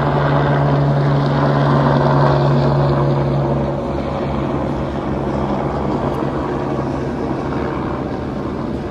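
A motor running steadily over a rushing noise, its low hum weakening about halfway through.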